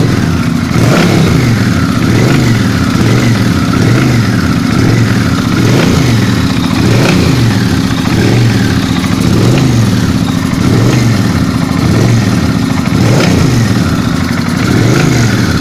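Suzuki Intruder VS800 V-twin engine revved about a dozen times, roughly once a second, each blip rising and falling in pitch, with a knock from the engine.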